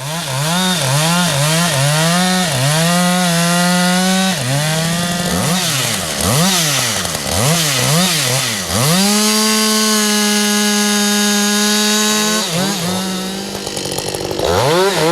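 Two-stroke chainsaw revved up and down over and over, its pitch swinging quickly. About nine seconds in it is held at high speed for some three seconds, then drops away and is revved in short blips again.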